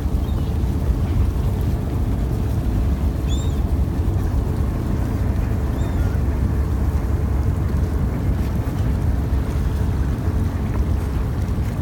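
Trawler's engine running steadily, a loud low drone, with a couple of brief faint gull calls over it.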